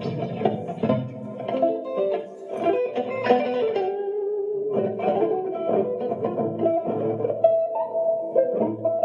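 Harp guitar (six strings plus six harp strings) played with a pick: a run of picked minor-key chords and single notes that ring on, with one note held for about a second midway.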